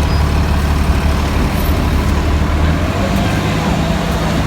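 Walt Disney World monorail running past, a loud steady low motor hum that gives way about three seconds in to a higher hum.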